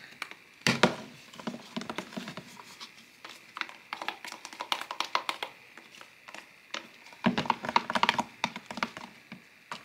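Plastic spoon stirring and scraping glue slime in a clear plastic tub: a run of quick clicks and taps of spoon on plastic, with louder clusters about a second in and again near the end.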